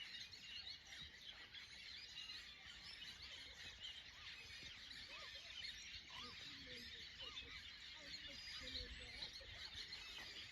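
Faint chorus of many birds chirping, dense, quick, high calls throughout, with a few lower calls from the middle onward.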